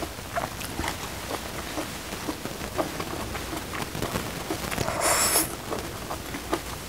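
Close-miked chewing: a mouthful of food being chewed with scattered wet mouth clicks, and a brief louder hiss about five seconds in.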